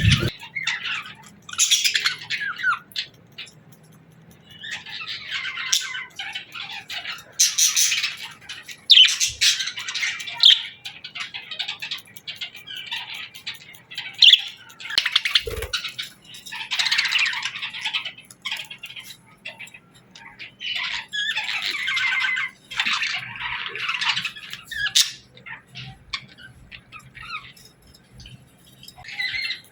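Budgerigars chirping and chattering in bursts of a second or two, with short pauses between. A single low thump about halfway through.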